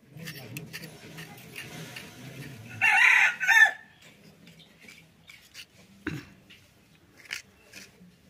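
A rooster crows once about three seconds in, a short call in two parts. Before it, a small blade scrapes singed hair off the skin of a goat's leg.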